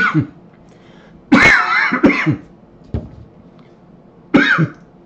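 A man coughing, several coughs in a row: the longest about a second and a half in, quickly followed by a shorter one, then a brief one, and a last cough near the end.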